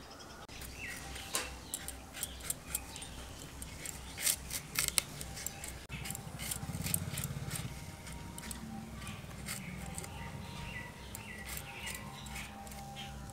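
A blade scraping the skin off a raw green mango, a string of short, sharp scrapes and clicks.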